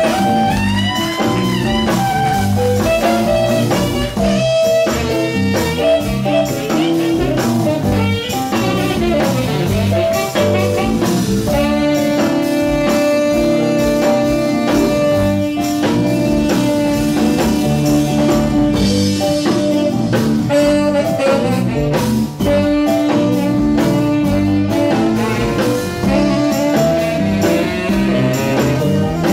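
Live blues band playing: two saxophones over electric guitar, bass and drums, with long held notes through the middle stretch.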